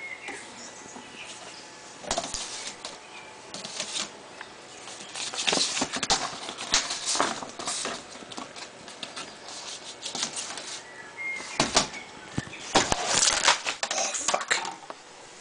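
Vinyl record sleeves being handled: a glossy plastic outer sleeve and cardboard jackets rustle and crinkle in irregular bursts, with scattered clicks and knocks.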